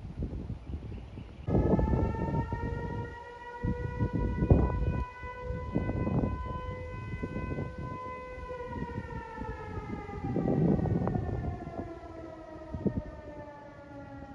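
Jet airliner flying low overhead: a whining engine tone that holds steady, then slides slowly down in pitch as the aircraft passes, over wind buffeting the microphone.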